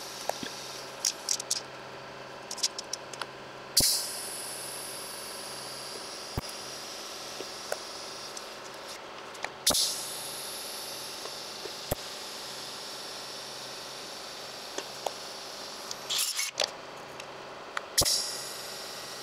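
TIG welding a stainless steel exhaust flange: a steady hum and hiss, broken by three sharp hissing bursts that die away, about 4, 10 and 18 seconds in, with scattered light clicks.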